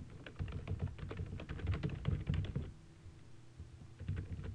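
Computer keyboard typing: a quick run of keystrokes for about two and a half seconds, then a pause and a few more keystrokes near the end.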